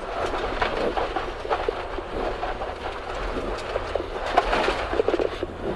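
Rally car driven hard on a gravel stage, heard from inside the cabin: low engine drone under a dense, irregular rattle of gravel and stones striking the underbody.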